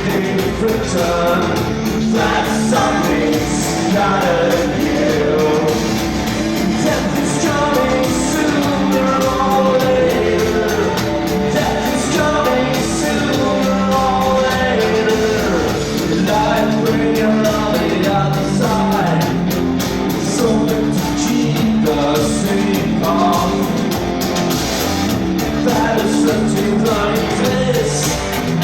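Live band performance in a club: a song with singing over loud amplified instruments and a steady beat.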